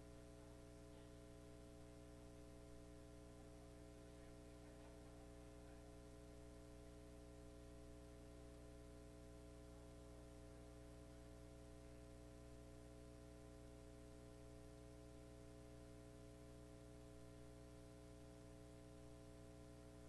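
Near silence: a steady electrical hum with faint hiss.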